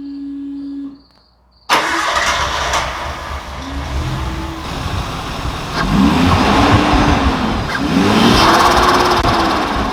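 Nissan Skyline R32 GTS-T's RB20DET turbocharged straight-six running, cutting in suddenly about two seconds in, then blipped repeatedly, its pitch rising and falling with each rev.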